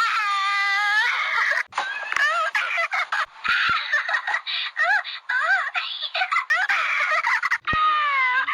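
Teletubbies talking plush toy's recorded voice giggling and squealing in high-pitched chirps that rise and fall, with short breaks about two seconds in and near the end as one clip gives way to the next.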